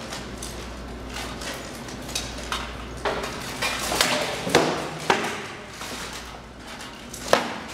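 Sword blows in SCA armored combat: rattan swords cracking against shields and armor in a run of sharp strikes through the middle, and one more near the end, each echoing in a large hard-floored hall.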